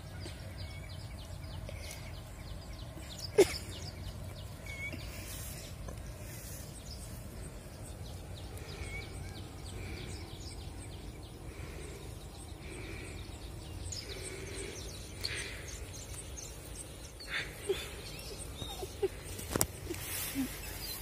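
Outdoor rural ambience: a steady low rumble with faint bird chirps, and a single sharp click about three and a half seconds in.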